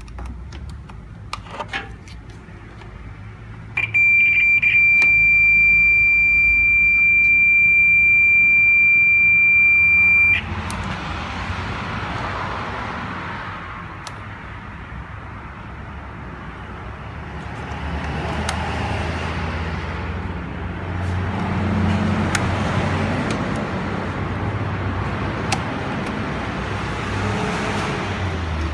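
Electronic warning beeper of a jump starter's reverse-protection clamp: three short high-pitched beeps about four seconds in, then one continuous tone for about six seconds that cuts off suddenly. After it, steady background noise with a few handling clicks as the clamps are worked.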